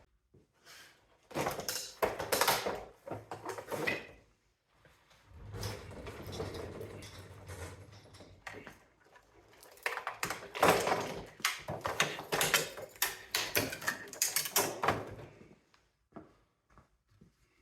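Plastic and metal parts of a mini split air conditioner clattering and knocking as the unit is pulled apart by hand, with a steadier rubbing noise for a few seconds in the middle.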